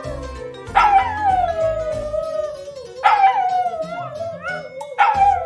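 Shiba Inu howling in three long howls, each starting high and sliding down to a held note, over background music with a steady beat.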